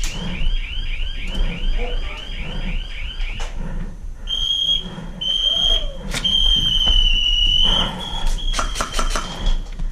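Airsoft prop bomb's electronic alarm, which signals that the bomb is armed. It gives rapid rising chirps, about four a second, then after a short pause a long steady high beep that breaks off twice before stopping near the end. Sharp clicks come and go throughout.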